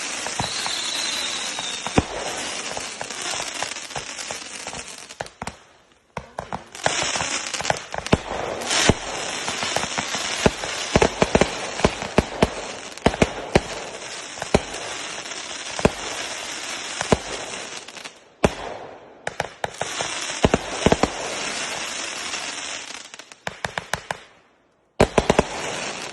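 Fireworks going off: a dense, continuous crackle packed with many sharp pops, with a few short breaks where it stops and starts again.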